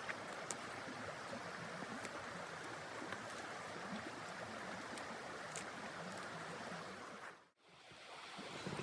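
Steady rushing noise of blizzard wind, with a few faint clicks. It cuts out briefly near the end and then rises again.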